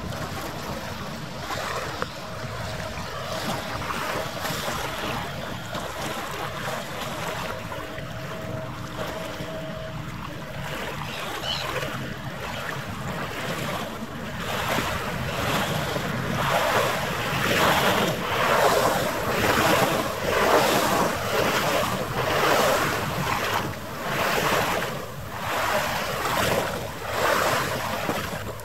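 Wind on the microphone over harbour water washing, with a faint steady hum in the first third. From about halfway the noise grows louder and swells and falls roughly once a second.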